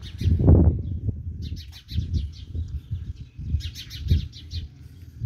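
Small birds chirping in quick high runs, over irregular low rumbling bumps that are the loudest sound.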